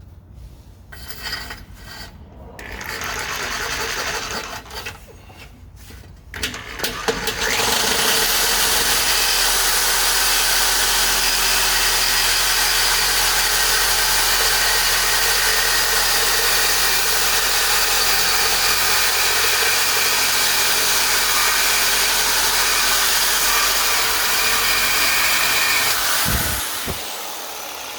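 A power cutting tool spins up and cuts through steel exhaust pipe in one long, steady cut, then winds down near the end. Shorter, quieter bursts of work come before the cut starts.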